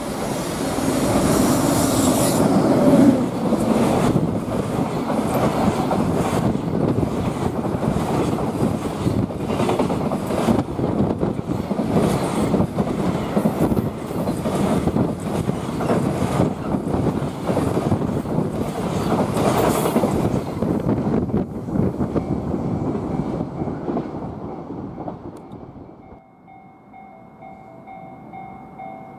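A long container freight train hauled by an EF510 electric locomotive passes close by: a loud, dense rumble with rapid clickety-clack of the wagon wheels over rail joints. It fades away over the last several seconds and gives way to a quieter steady tone.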